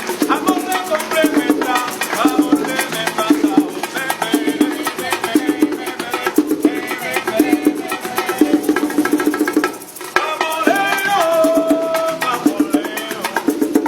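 Latin-style music with percussion keeping a steady beat, with a short break about ten seconds in.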